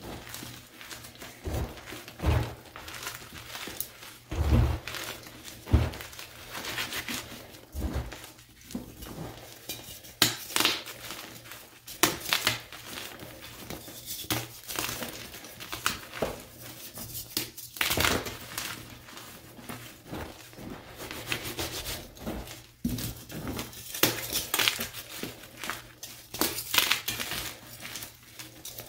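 Plain and dyed Picsil gym chalk blocks crushed and crumbled by hand into loose powder: irregular dry crunching and crumbling, with a few dull thumps in the first several seconds as chunks give way.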